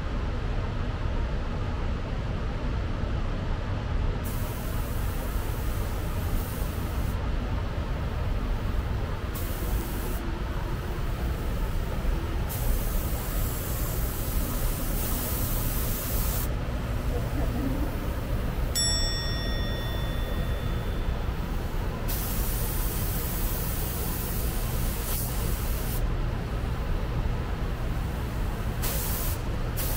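Compressed air hissing from an air tool in repeated on-off passes of one to several seconds each, over a steady low rumble. A short high whistle sounds about two-thirds of the way through.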